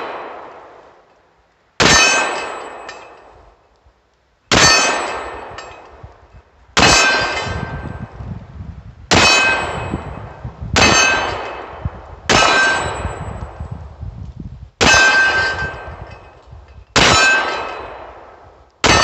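SCCY DVG-1 9mm pistol fired slowly, about eight shots roughly two seconds apart. Each shot is followed by a long metallic ring from a struck steel target that fades before the next shot. The gun is cycling without a malfunction through this string.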